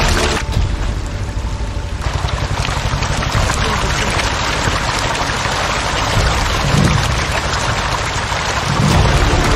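A dense, continuous churning and splashing of water from a mass of hybrid catfish thrashing at the pond surface in a feeding frenzy over freshly dumped feed.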